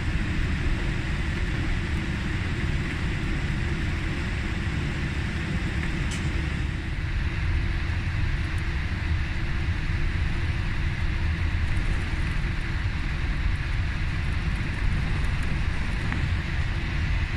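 Steady cabin noise of a Boeing 787-8 rolling out on the runway after landing: a low rumble of the landing gear and engines at idle, with a faint steady high tone above it.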